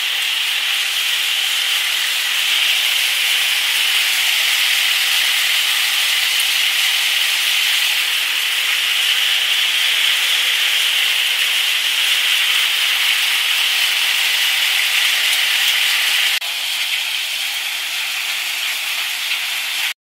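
Multicrop thresher shelling maize, a loud, steady hissing rush of machinery and streaming grain with no bass. It steps down a little in loudness about 16 seconds in.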